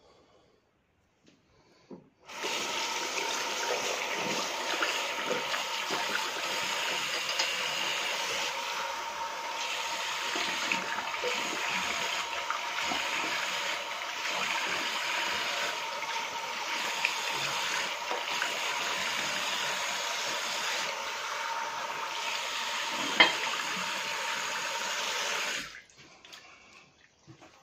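Bathroom sink tap running steadily while the face is rinsed after a shave. The water is turned on about two seconds in and shut off abruptly near the end, with one sharp knock or splash shortly before it stops.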